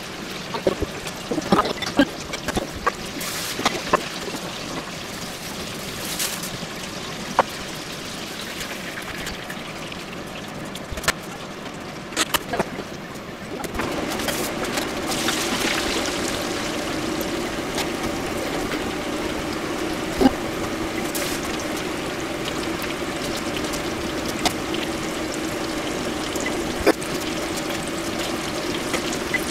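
Clicks and light handling noises as fried pieces are arranged on a paper-lined tray; about fourteen seconds in, a steady sizzle of deep-frying oil begins, with occasional pops, as battered strips fry in a pot.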